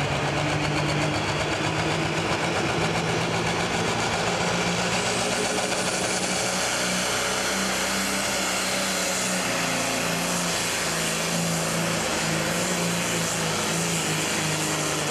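Pro stock pulling tractor's turbocharged diesel engine running flat out under full load as it drags a weight-transfer sled. A loud, steady drone that climbs slightly in pitch as the pull goes on.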